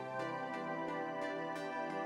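Soft background music of sustained instrumental notes that change every half second or so.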